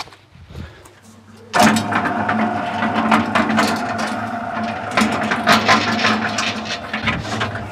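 Electric cement mixer switched on with its drum empty, given a first test run: about a second and a half in the motor starts and the drum turns, a steady hum with constant rattling and clatter.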